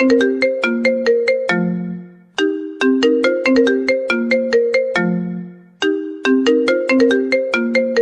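Mobile phone ringtone: a quick melody of short plucked notes that loops about every three and a half seconds. Each pass ends on a held low note and dips briefly before the melody starts again.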